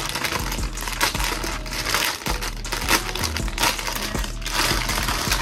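Clear plastic packaging bag crinkling in the hands as it is handled and opened to take out a fuzzy headband, a dense run of quick irregular crackles.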